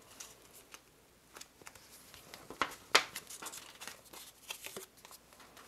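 Folded cardstock being handled and pressed with a bone folder: faint scraping and rustling of paper with scattered sharp ticks, the loudest about three seconds in.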